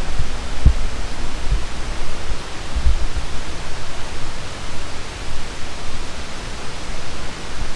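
Steady rushing roar of a waterfall, with irregular low thumps on the microphone.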